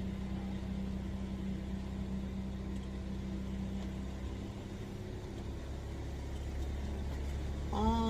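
Onan Microlite 4000 RV generator running steadily under a light load, a constant hum whose low note shifts about halfway through. A brief vocal sound near the end.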